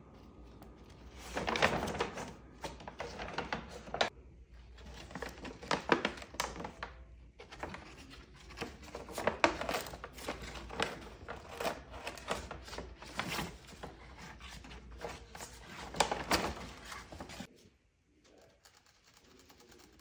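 Brown paper shopping bag crinkling and tearing as an African grey parrot moves inside it and rips at it with its beak, a busy run of crackly rustles that stops shortly before the end.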